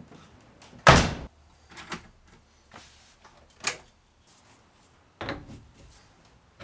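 A few clunks and clicks from a car's door and interior. The loudest is a sharp thud about a second in, and four lighter knocks follow over the next few seconds.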